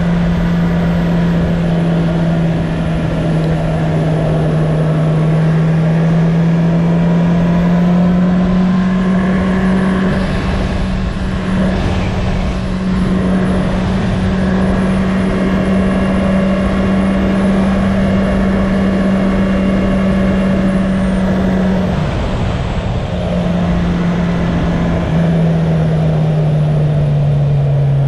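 2019 Honda CB650R's inline-four engine running at a steady cruise under wind rush. The engine note climbs slightly, then holds level. It dips briefly about 22 seconds in and drops lower near the end as the bike slows.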